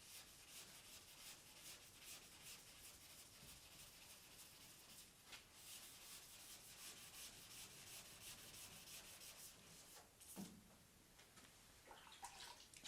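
Hand sanding block rubbing back and forth over the primered body of a Porsche 911, faint and rapid, with a short break about ten seconds in.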